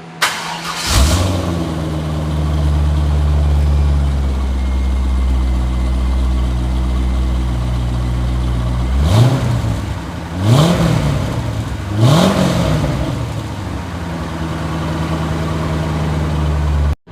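C5 Corvette's 5.7-litre V8 starting and idling through freshly installed stock mufflers. It catches about a second in and settles to a steadier idle. Around the middle it is revved three times in quick blips, then drops back to idle.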